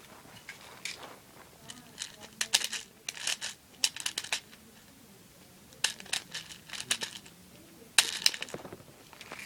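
Plastic BBs being loaded into an airsoft pistol magazine with a speed loader: irregular clusters of small clicks and rattles, with short pauses between.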